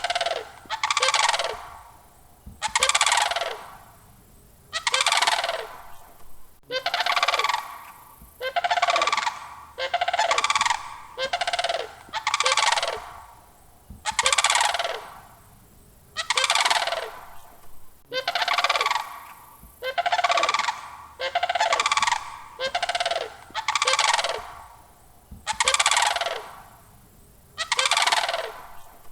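Sandhill crane calling over and over, a short call roughly once a second with brief pauses between calls.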